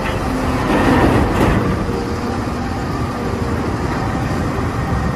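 Steady, dense vehicle-engine-like rumble with a faint underlying hum.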